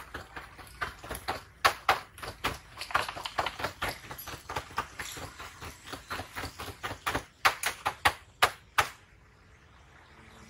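French fries being seasoned in a plastic bowl from a plastic shaker bottle: a quick, irregular run of taps and clicks that stops abruptly about nine seconds in.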